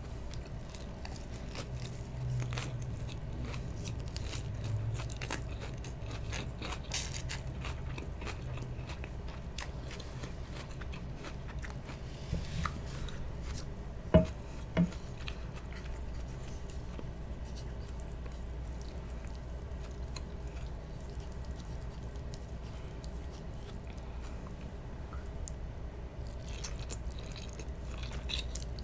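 Close-miked chewing and biting of food, with crisp crunches of lettuce and wetter bites of spaghetti and meatballs. Two sharp clicks of cutlery come about halfway through.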